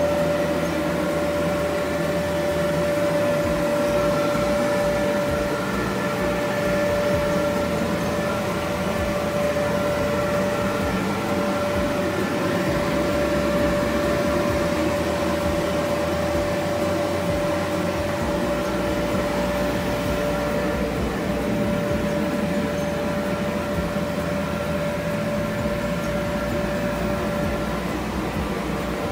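Electric inflation blower of a bounce house running steadily: an even fan noise with one constant hum held throughout.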